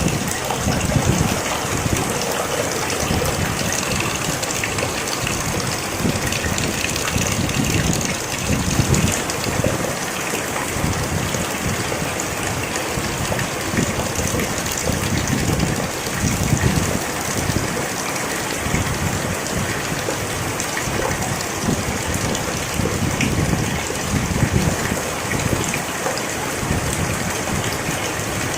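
Rain falling steadily: an even hiss of water with an uneven low rumble beneath it.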